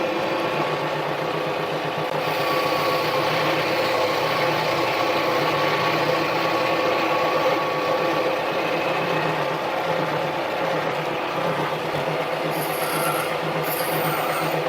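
Harbor Freight mini lathe running with a steady motor whine while a tool faces the end of a 1-inch 1018 cold-rolled steel bar, giving a continuous scraping rasp from the cut. A brief higher hiss comes in near the end.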